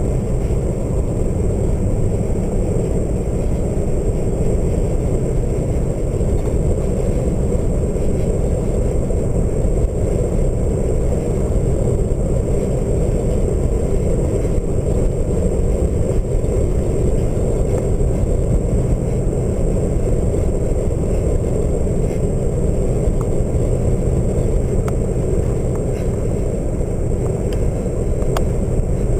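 Steady wind and road noise in a car moving at speed with its side window partly open.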